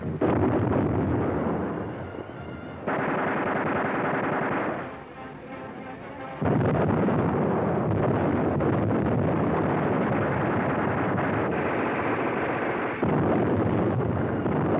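Battle sound effects of artillery shells exploding and gunfire, heard as a dense, continuous rumble. It falls away about five seconds in and comes back suddenly louder about a second and a half later.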